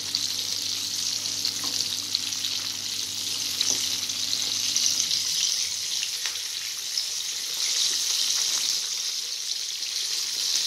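Chicken drumsticks deep-frying in hot oil in an iron kadai, a steady high sizzle, with a few faint clicks as a fork turns the pieces over.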